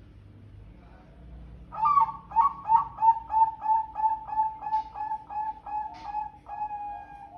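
Bangkok-type zebra dove (perkutut) singing: after a quiet start, a quick run of about fourteen short cooing notes, about three a second, loudest at first, closing on a longer held note near the end.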